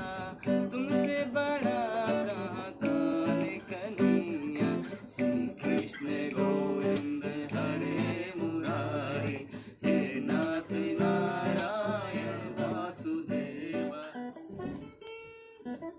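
Acoustic guitar strummed in chords under a man's voice singing a Hindi devotional bhajan. The melody wavers and bends above the guitar. The playing thins out near the end.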